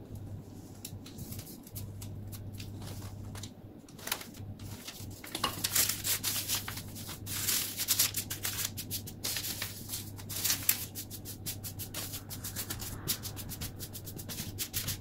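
A plastic lattice pastry cutter rolled over a thin sheet of pastry dough on baking paper, then hands rubbing and pressing the cut dough. It makes an uneven scratchy rubbing and paper rustle with many small clicks, busier from about five seconds in.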